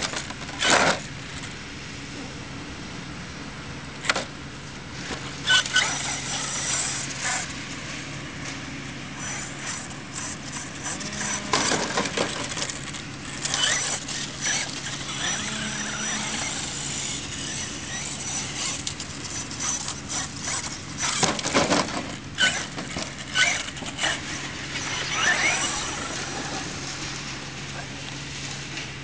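Brushless electric RC monster truck (HPI Savage Flux HP) driven in short bursts on grass and ramming a toy sports car: intermittent motor whine with knocks and rattles on contact, over a steady background noise.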